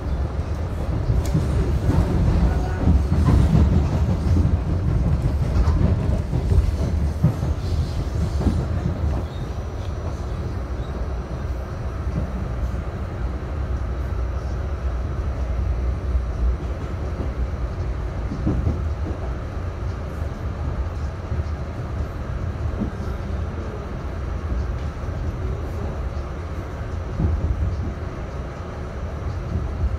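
R68A subway car running at speed, heard from inside the car: a steady low rumble of wheels on rail, with clicks and rattles over the first several seconds, then a steadier run.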